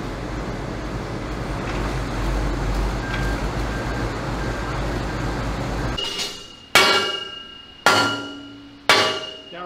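A forklift engine running steadily for about six seconds, then three hammer blows on steel armour plate about a second apart, each ringing out as it fades.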